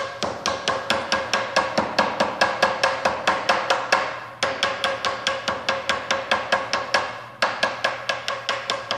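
Rapid hammer blows, about five a second, knocking the ends of a stack of Marlite plank panels in their cardboard box to square up the edges, in three runs with short breaks about four and seven seconds in.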